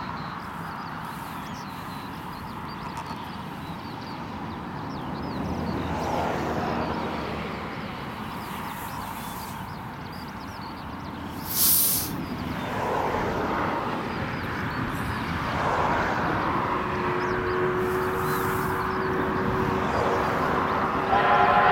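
NZR Ka and Wab class steam locomotives hauling a train slowly, with a steady hiss and working noise that swells and eases. A short loud burst of hiss comes about halfway through. A locomotive's steam whistle sets in faintly in the last few seconds and grows loud at the very end.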